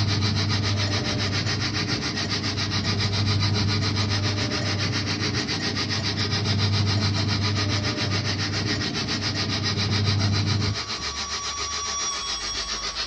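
MKC Designs train kiddie ride running: its drive motor hums steadily under a fast, even rasping rhythm, and the motor hum cuts off about eleven seconds in as the ride stops moving, leaving the rasping rhythm going on.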